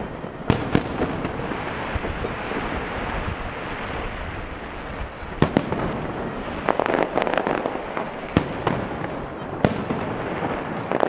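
Aerial firework shells bursting: about half a dozen sharp bangs, some in quick pairs, over a continuous din from the display between them.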